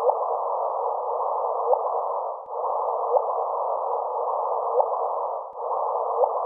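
A black hole signal converted into sound: a steady band of mid-pitched hiss with short, faint rising chirps about every second and a half. It dips briefly twice.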